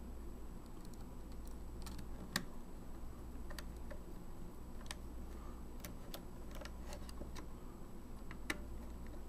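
Small precision screwdriver and screws clicking and ticking irregularly against the metal frame of an opened compact digital camera as screws are driven back into the LCD holder, with two sharper clicks, one about two seconds in and one near the end.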